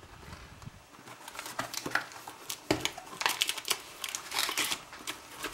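Cardboard box being torn open by hand: irregular rustling, crinkling and tearing of its flaps, busier from about a second and a half in.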